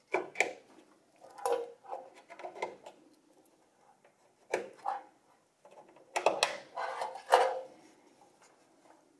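SATA/SAS data cables being handled and their plastic connectors pushed onto motherboard ports: sharp clicks and rustling in four short spells with quiet gaps between.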